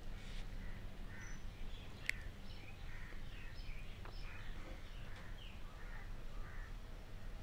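Faint scattered bird chirps and calls over a low steady hum, with one sharp click about two seconds in.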